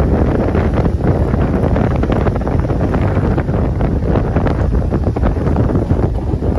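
Wind buffeting the microphone: a loud, dense low rumble with no clear tone.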